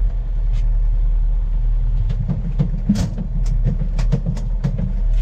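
Boat engine running steadily with a low drone, and a rapid run of sharp clicks and knocks over it from about two seconds in.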